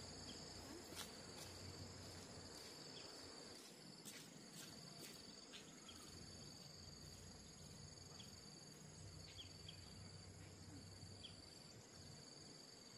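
Faint, steady high-pitched trilling of insects such as crickets, with a few soft clicks scattered through it.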